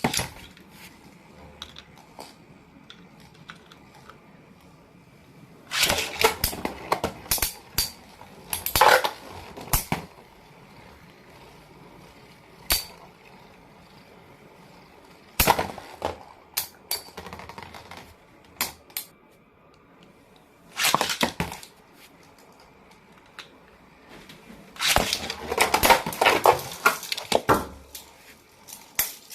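Clicks and rattles of hard plastic toy parts being handled, in several short clattering bursts with pauses between.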